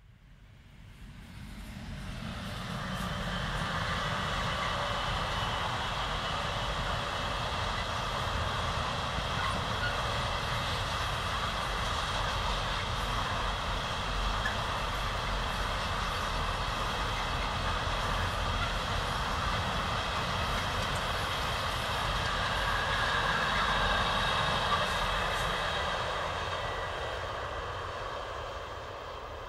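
Long electric-hauled freight train passing, trailers on flat wagons behind a Siemens Vectron locomotive: a steady rumble and clatter of wheels on rail with a faint ringing hum. It grows louder over the first few seconds, swells again a little after twenty seconds in, then fades near the end.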